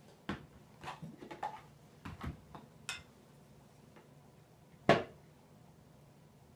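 Tableware being handled while rice is served from a tub: a quick run of light clicks and knocks in the first three seconds, then one sharp knock about five seconds in.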